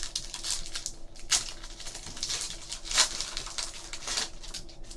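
Trading cards and their packaging being handled: quick rustling, sliding and light clicks, the sharpest about three seconds in.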